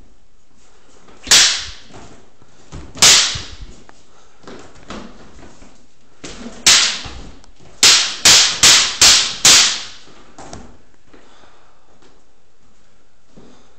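Wooden practice swords clacking together in sparring: sharp strikes, three single ones a couple of seconds apart, then a quick flurry of five, about two and a half a second, a little past the middle.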